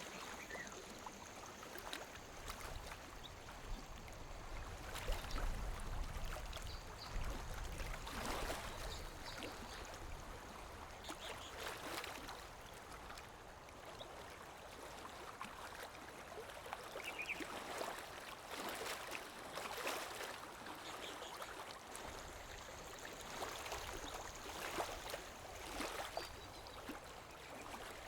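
Small waves lapping against a lake shore: soft, irregular splashes every second or two over a steady wash of water.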